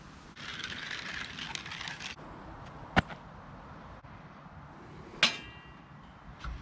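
Metal camp stove gear being handled: rustling for a couple of seconds, then a sharp knock, and later a louder metallic clank that rings briefly.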